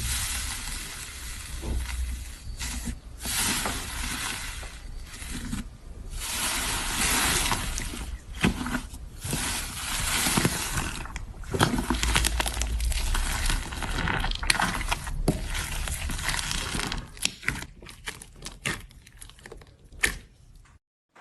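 Slime being squeezed and stretched by hand, a crackling, squishing noise full of small sharp pops and clicks that thins out near the end.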